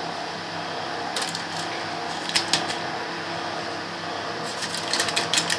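Thin paper liner crinkling, with light clicks as biscuits are handled and pressed into a lined loaf tin. The crinkles come in a few short clusters, most near the end, over a steady low background hum.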